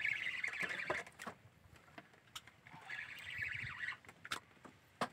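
Fishing reel being cranked in bursts of about a second, about three seconds apart, as the jigging rod is pumped and line is wound in. Sharp clicks and knocks from the gear and boat come in between.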